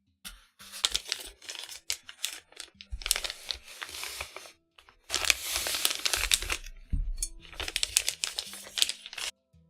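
Plastic packaging crinkling and tearing in irregular bursts, with sharp clicks, as keyboard parts are unboxed. Soft background music plays underneath.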